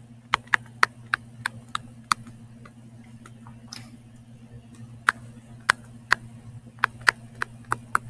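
Stylus tip tapping and clicking on a tablet screen during handwriting: a string of sharp, irregularly spaced clicks over a steady low electrical hum.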